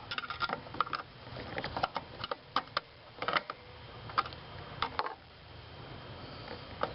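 Irregular small clicks, taps and scrapes of hands and a tool working at the plastic catches that hold a blower motor resistor in its mounting, prying the resistor loose.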